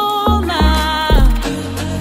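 Loud dance music playing over a sound system: a gliding melody over heavy bass beats.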